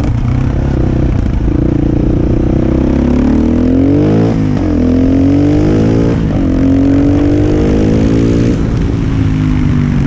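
Husqvarna SM 610 supermoto's single-cylinder four-stroke engine heard from on board under load, revs climbing through the gears: the pitch rises, drops sharply at gear changes about four and a half and six seconds in, climbs again, then falls away near the end as the throttle eases.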